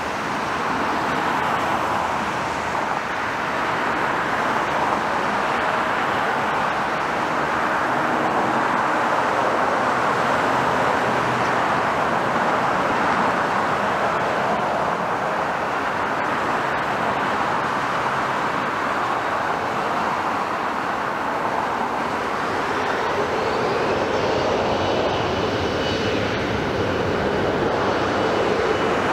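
Embraer E175 regional jet's turbofan engines at taxi power: a steady jet rush, with a high whine coming in over the last few seconds as the jet passes.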